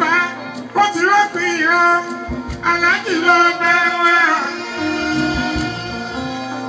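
Live Fuji music: a male singer sings several long, sliding phrases into a microphone over the band's bass guitar and talking drum. The voice stops about four and a half seconds in while the instruments play on.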